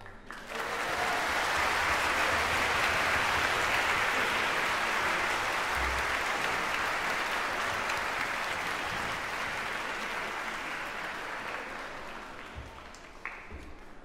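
Audience applauding, starting about half a second in and slowly dying away near the end.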